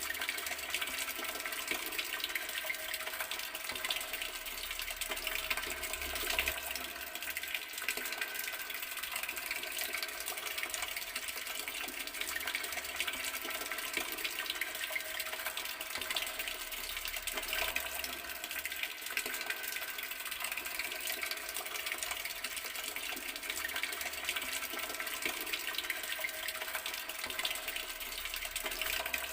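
Outdoor water tap left running, a steady splashing stream of water.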